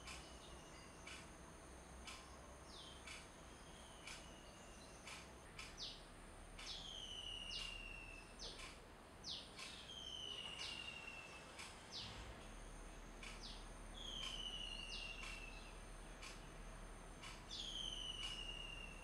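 A bird repeating one call about every three to four seconds: a quick downward note, then a long, slightly falling whistle. Under it run a faint, steady high hum and regular sharp ticks.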